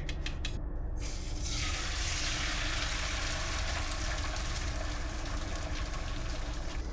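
A few quick clicks, then from about a second in, food sizzling steadily in a hot frying pan over a steady low hum.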